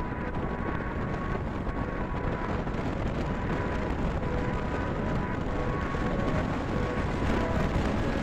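Steady wind rumble on the microphone mixed with motorcycle engine and road noise while riding at speed.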